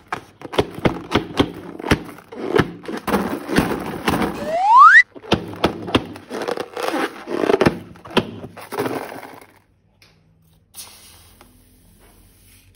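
Rubber balloons and slime being squeezed and worked by hand: a run of crackly, squelching clicks, with a squeal rising in pitch about four and a half seconds in that cuts off suddenly. The handling noise stops about nine and a half seconds in.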